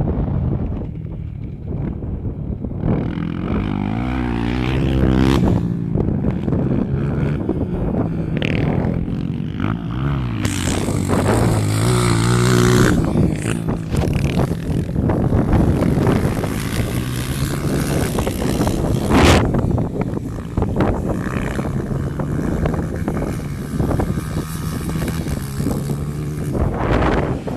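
Single-cylinder four-stroke dirt bike engines running under way, their pitch rising and falling again and again as they are revved, with wind rushing over the microphone at times.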